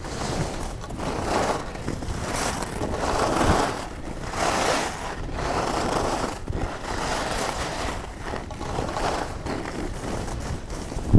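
Skis carving and scraping across snow through a series of turns, the noise rising and falling with each turn, with wind rushing over the microphone.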